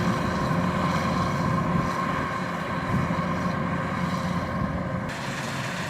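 Kubota DC-93 combine harvester running steadily: a continuous diesel engine drone mixed with the whirr of its working machinery, getting gradually quieter.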